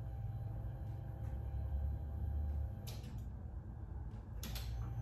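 Low hum of the Lincoln Mark VII's newly installed electric fuel pump priming with the key on, louder for about a second near the middle. Two sharp clicks come about a second and a half apart.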